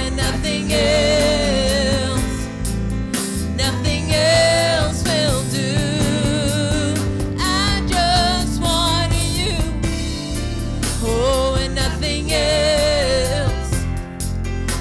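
Live gospel worship song: a woman's voice sings held notes with vibrato over keyboard and drums.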